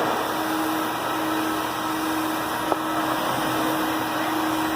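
Ruwac R211H industrial HEPA vacuum running steadily under suction: an even rush of air over a constant motor hum, with one small click partway through.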